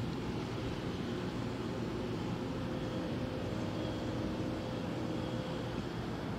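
Steady low rumble of distant street traffic, with a faint steady hum.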